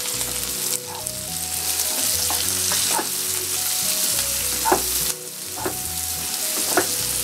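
Sliced onions, karonda berries and green chillies sizzling in oil in a nonstick frying pan as a wooden spatula stirs them. The spatula knocks and scrapes against the pan a few times.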